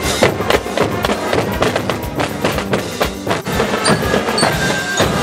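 Marching drum band percussion playing a rhythmic beat: bass drums, snare drums and cymbals, with marching bells ringing short high notes about four seconds in.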